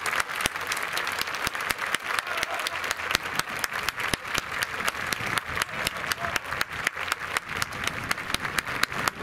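Crowd applauding, many hands clapping steadily.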